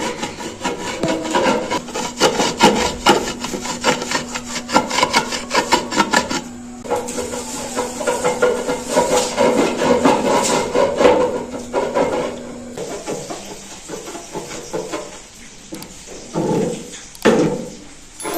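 Rapid, repeated scraping strokes, about four a second, with a short pause about six and a half seconds in, then rougher, less regular strokes that die down, with two louder scrapes near the end.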